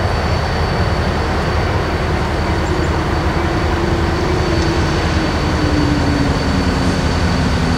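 Diesel locomotive engine idling while the train stands still, a steady low rumble. Over the last few seconds a fainter tone slowly drops in pitch.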